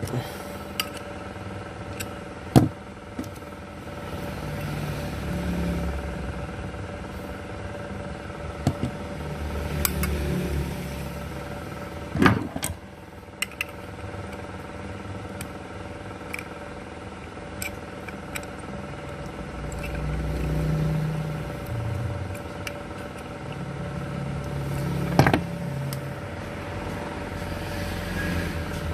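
Steady motor-vehicle engine hum that swells and fades, with a few sharp clicks and taps scattered through it.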